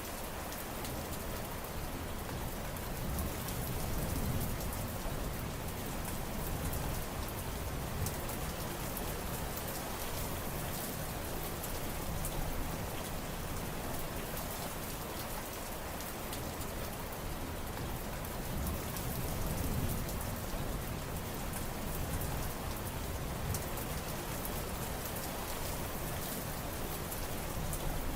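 Steady heavy rain falling on surfaces, with fine drops pattering throughout. A deeper low rumble swells up twice, a few seconds in and about two-thirds of the way through.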